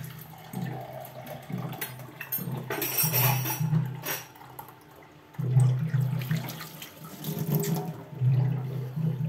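Water running from a kitchen tap in several spells, with a few sharp knocks of utensils.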